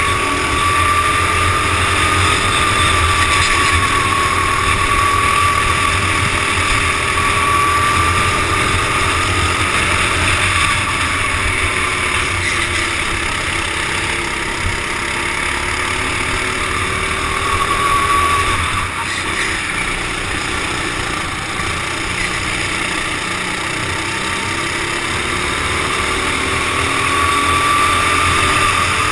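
Racing kart engines running at speed, heard from the driver's helmet, the whine rising and falling in pitch as the kart accelerates along the straights and lifts off for the corners, with a short drop about two-thirds of the way through.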